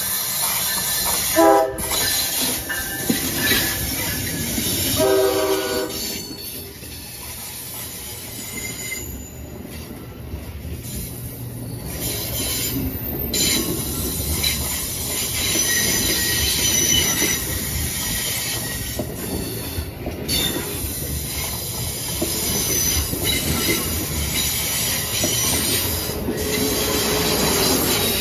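Amtrak Acela trainset sounding two short horn blasts as it approaches, then passing close by with a steady rumble of wheels on rail and high-pitched wheel squeal.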